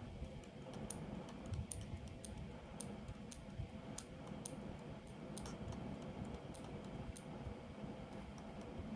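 Light, irregular clicks of a computer keyboard and mouse in use, about a dozen, stopping about seven seconds in, over a steady low rumble.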